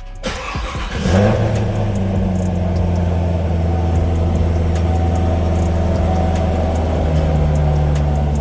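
2019 Corvette ZR1's supercharged 6.2-litre LT5 V8 idling steadily through the exhaust, its sound coming in about a second in; the exhaust valves are closed.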